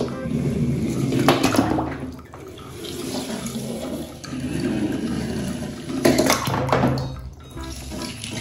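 Water running and splashing, with two louder surges of splashing, about a second in and about six seconds in.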